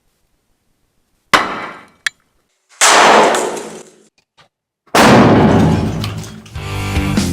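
Three loud bangs of an airsoft grenade's firecracker charge going off, each with a noisy tail: a sharp crack, then two bigger blasts about two seconds apart. Rock music comes in near the end.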